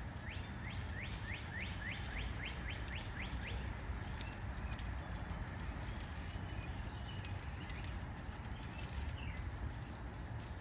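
A songbird giving a quick series of about a dozen short rising chirps, roughly four a second, over the first few seconds, against steady outdoor background noise with faint scattered clicks.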